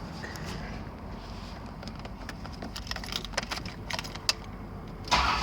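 Car keys jangling and clicking at the ignition, then about five seconds in the 1990 Buick Reatta's 3.8-litre V6 starts up suddenly and loudly.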